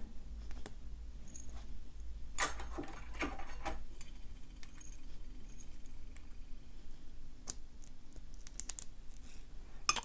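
Small metal clicks and clinks as a key and a plug follower are worked into a brass padlock core to push the plug out. A few light clicks at first, a cluster a little before the middle, then a few more near the end.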